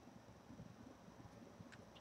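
Near silence with faint room tone, broken near the end by one brief, faint high chirp from a small caged finch or canary.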